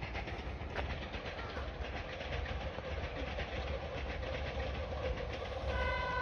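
Meitetsu electric train approaching on the curve, its running noise growing slowly louder, with a steady whine joining in during the second half. Its horn starts sounding a held chord about half a second before the end.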